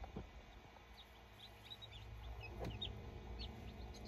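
Newly hatched silkie chicks peeping faintly: many short, high peeps, a few each second, starting about a second in.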